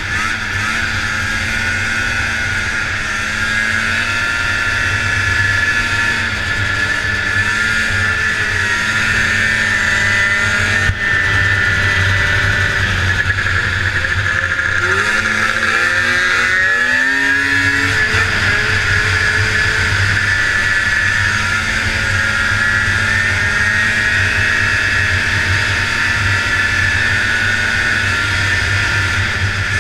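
A racing snowmobile's 440 cc liquid-cooled two-stroke engine runs hard, heard from on board. Around the middle the engine note drops away briefly through a turn, then climbs in pitch as the sled accelerates out and holds steady again.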